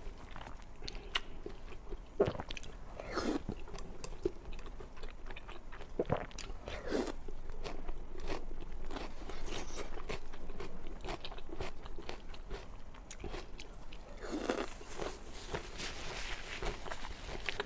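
A person biting and chewing food close to the microphone, with irregular crunching bites; a few sharper bites stand out about two, three, six and seven seconds in and again near the end.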